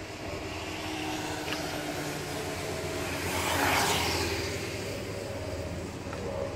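Steady engine hum and road noise heard from inside a moving car. A louder rush of noise swells and fades about halfway through.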